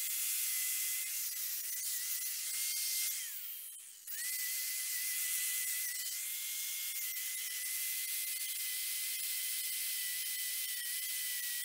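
Angle grinder running at full speed on the end of a metal tube held in a pipe vise: a steady high motor whine over the hiss of grinding. About three seconds in, the whine falls in pitch as the grinder winds down. It is running again at full speed a second later.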